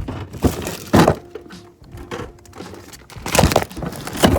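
A run of loud thuds and knocks with rustling in between: a refrigerator being opened, a bag of shredded cheese put inside, and the door shut.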